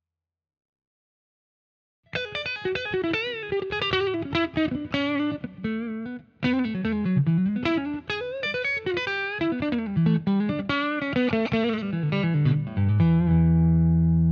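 Electric guitar played through a J. Rockett Revolver pedal in mono boost mode: a fast single-note lead with string bends. It starts about two seconds in and ends on a held note.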